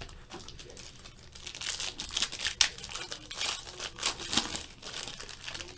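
Foil trading card pack being torn open and crinkled by hand, a run of crackling rustles that is busiest in the middle few seconds.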